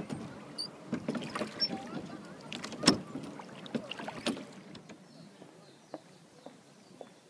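Rowboat oar strokes: the wooden oar splashing in and out of the water with sharp knocks, the loudest about three seconds in. After about four and a half seconds the splashing stops and only faint scattered ticks remain.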